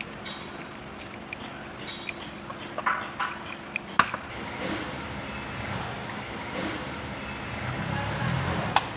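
Metal tools and parts clinking and tapping in irregular sharp clicks, the loudest about four seconds in and near the end, over a steady background hum.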